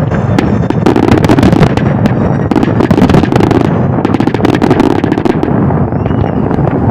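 Fireworks bursting in a rapid, continuous barrage: many overlapping bangs and crackles over a steady low rumble.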